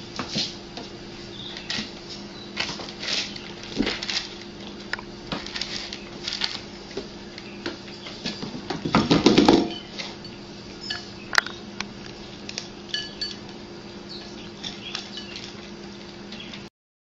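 Cats eating dry kibble from bowls: scattered clinks and rattles of food against the bowls, with a longer, louder rattle about nine seconds in, over a faint steady hum.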